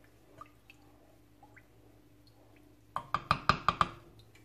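Faint stirring in a soup pot, then about three seconds in a quick run of about seven light clicks with a short ring.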